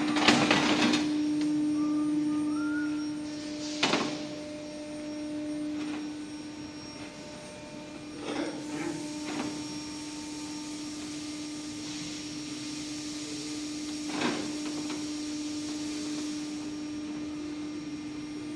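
A steady electric machine hum, with a few sharp knocks and clatters: several near the start, one about four seconds in, a cluster about eight to nine seconds in and one about fourteen seconds in. A hiss like rushing air comes in about nine seconds in and fades a couple of seconds before the end.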